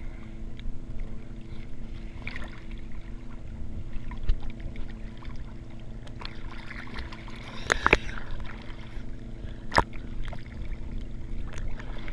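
Sea water sloshing against a camera held at the surface, over a steady low boat-engine hum. Sharp water slaps stand out about eight and ten seconds in.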